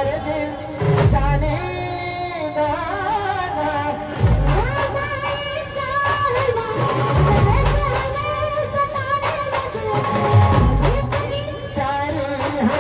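Brass band music: a melody line carried on horns over heavy bass-drum beats that land every few seconds.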